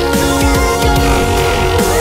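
Loud electronic music with held synth tones over a heavy bass, a few notes sliding in pitch.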